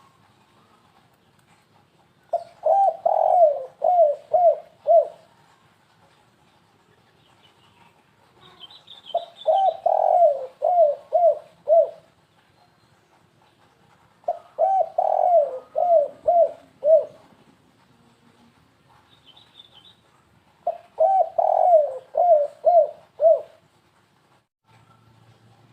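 Spotted dove cooing in the stuttering 'kuk-3' style used as a bird lure: four phrases, each a quick run of six to eight hooked coos lasting about three seconds, with pauses of a few seconds between them.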